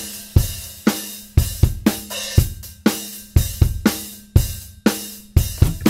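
A rock drum kit playing on its own, kick and snare hits about twice a second with cymbals ringing over them, and a few quicker hits near the end leading into the full band.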